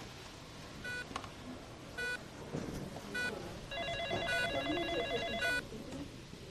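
An electronic telephone rings with a pulsing trill for about two seconds, starting a little past halfway. Under it, a short electronic beep repeats about once a second over a faint hospital background murmur.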